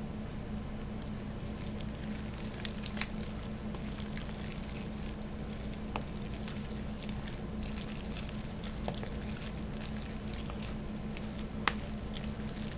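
A fork stirring and mashing a thick, wet chicken-and-refried-bean paste in a plastic bowl: soft squishing and scraping with a few sharper clicks, over a steady low hum.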